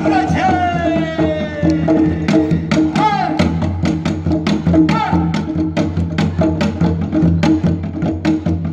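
Live Korean folk-style music: drums struck in a steady beat that grows busier in the second half, with a sung voice sliding and falling in pitch over a steady low drone in the first few seconds.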